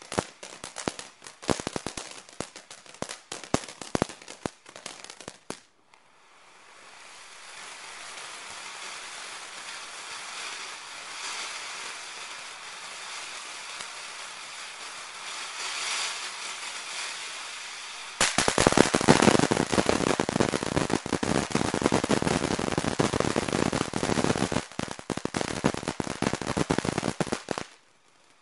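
Ground fountain firework spraying sparks. It first gives a rapid string of crackling pops, then settles into a steady hiss. About two-thirds of the way through, a loud, dense crackling begins as crackling stars burst around the spray, and it cuts off sharply near the end.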